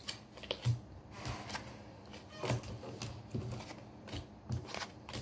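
Tarot cards being gathered up and handled: a scatter of short, irregular taps and slides of card on card and on the table.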